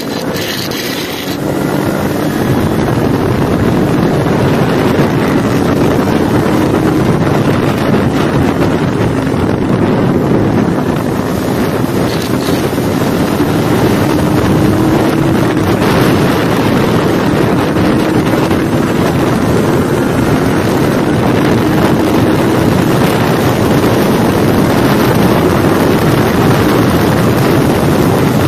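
Kawasaki Ninja 400's parallel-twin engine running hard at speed, its note climbing slowly several times, under heavy wind rush on the microphone.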